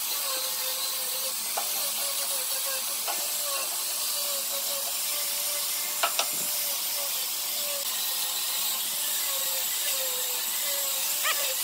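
Handheld electric angle grinder with a sanding disc, running under load as it sands the edge of a wooden board: a steady hiss over a wavering motor whine, with a few light knocks.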